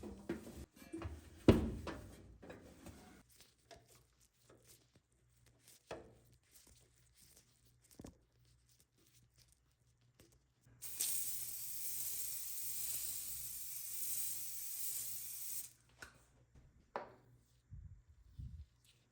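A cleaning spray hisses steadily for about five seconds. Before it come scattered knocks and clatter of kitchen things being handled, including one sharp knock a second or two in.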